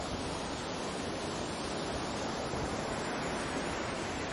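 Sea surf rushing steadily, an even wash of waves without distinct breaking crashes.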